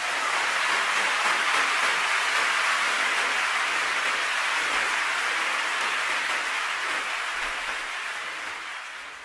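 Audience applause, a dense steady clapping that fades away near the end.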